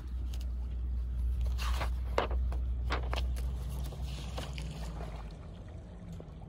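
Wind rumbling on the microphone, easing near the end, with short paper rustles and flicks as the pages and a fold-out flap of a picture book are handled.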